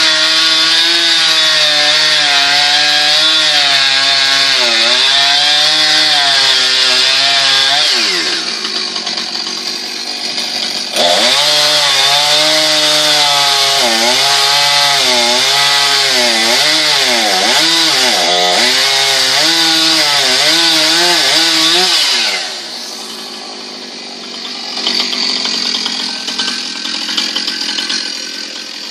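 Gasoline chainsaw cutting into tree wood, its pitch wavering up and down as the chain bogs in the cut. About eight seconds in the throttle drops back, it comes back on sharply about three seconds later, and near the end it lets off again.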